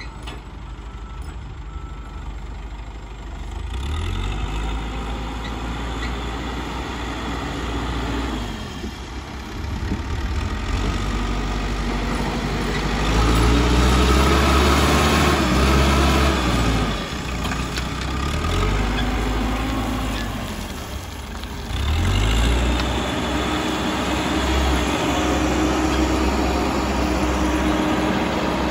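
Caterpillar 434E backhoe loader's diesel engine working under load while pushing soil with the front bucket, revving up and easing off several times, loudest a little past midway.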